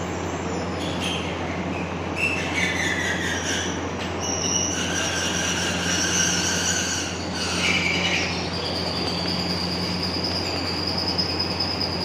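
Steady machine hum with high-pitched whining tones above it that change pitch every second or two, settling into one steady high whistle about two thirds of the way through.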